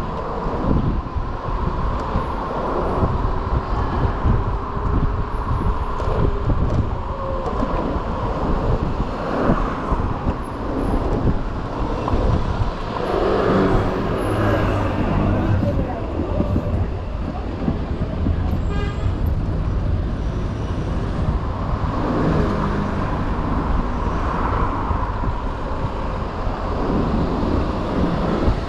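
Ride on an electric moped through city traffic: wind buffeting the microphone and road rumble, with surrounding cars and traffic passing.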